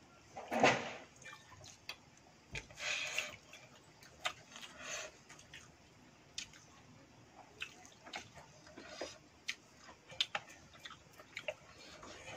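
Eating basi pakhala bhat, rice soaked in water, by hand from a steel bowl: wet squishing and sloshing of fingers in the watery rice, mouth sounds of slurping and chewing, and many small clicks. The loudest wet burst comes about half a second in, with a few more around three and five seconds in.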